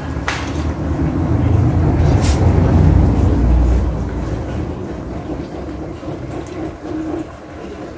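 A low rumble that swells over the first three seconds and then fades away, with a couple of light clicks.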